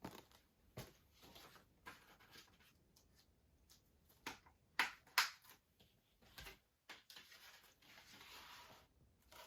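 Handling of a plastic Blu-ray case and its discs: scattered faint clicks and taps, two sharper ones about five seconds in, then a soft rustling slide lasting about two seconds near the end.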